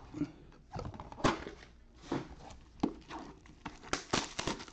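Plastic card-pack wrappers crinkling as they are handled, with scattered light taps and clicks, several of them close together near the end.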